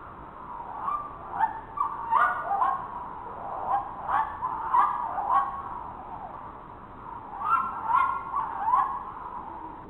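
Reconstructed dinosaur (Variraptor) calls made from edited bird recordings: three bursts of short, pitched calls that jump up and down in pitch, each burst a rapid string of notes.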